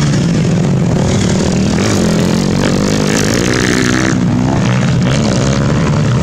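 Motocross dirt bike engines revving as they race, their pitch rising and falling through throttle changes about midway.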